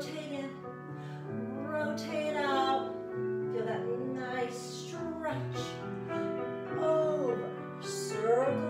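Background music for a ballet exercise: a woman singing in long, wavering phrases over held accompaniment.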